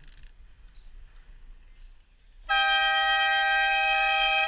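Train horn mounted on a bicycle sounding one long, loud blast, a chord of several notes. It starts suddenly about two and a half seconds in and holds steady for about two seconds.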